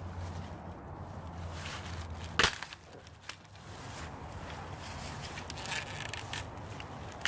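Dry wood cracking as a tree branch is broken by hand: one sharp loud snap about two and a half seconds in and a smaller crack near the end, with crackling and rustling of twigs and leaves between.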